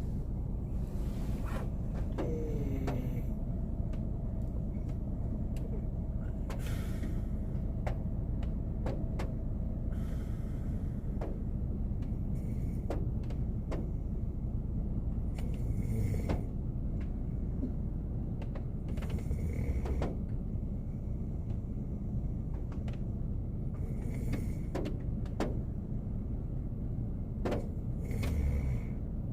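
A man snoring in his sleep, a breath roughly every four seconds, over the car's steady low hum. Raindrops tick on the car body now and then.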